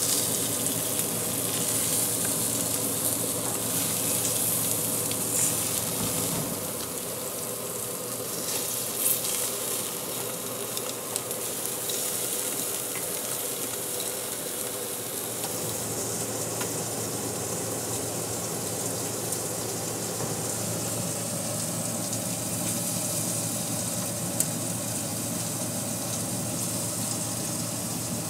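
Kielbasa and strips of meat sizzling on the grate of a Coleman RoadTrip Sport propane grill, a steady frying hiss, with a couple of brief clicks.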